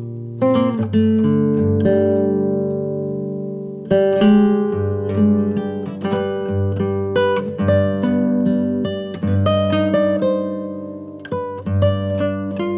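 Background music: acoustic guitar playing a plucked melody over sustained bass notes.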